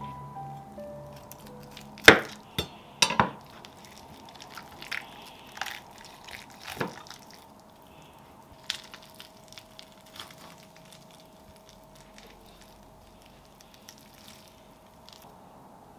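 Kitchen handling sounds: scattered clinks and knocks of utensils and dishes, with a few sharp knocks about two and three seconds in, over a faint steady hum.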